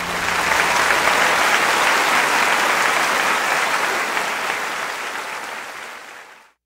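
Theatre audience applauding at the close of the act. It swells in the first second as the music ends, holds steady, then fades away near the end.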